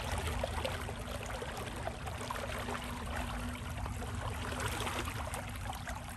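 Floodwater flowing, a steady rushing and gurgling noise with a low rumble and a faint steady hum underneath.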